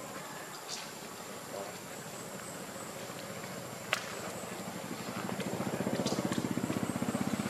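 A small engine running with a low, rapid pulse, growing louder from about five seconds in, over outdoor ambience with a faint steady high whine and a few light clicks, one sharper near the middle.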